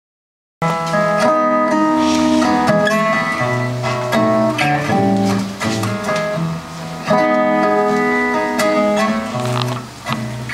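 An acoustic guitar plays a picked and strummed passage of single notes and chords. It starts abruptly about half a second in, after dead silence.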